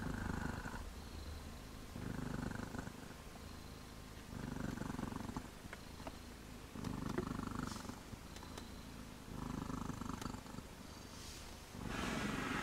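Tabby mother cat purring while her newborn kittens nurse, the purr swelling into louder stretches about every two and a half seconds.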